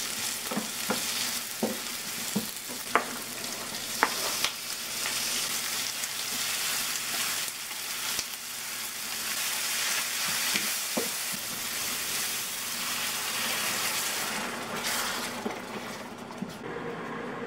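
Onions and lechon pork skin sizzling in oil in a stainless steel skillet, with a wooden spatula stirring and clicking against the pan a few times in the first seconds. Near the end the sizzle dies down as liquid goes into the pan.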